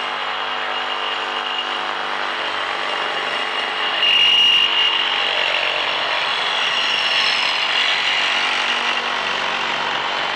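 Flex brushless reciprocating saw with a metal-cutting blade, orbital action off, sawing steadily through a metal pipe. The saw runs with a continuous high whine from blade and metal, a little louder about four seconds in. The blade is on its fourth cut, and a worn blade cuts more slowly and less smoothly.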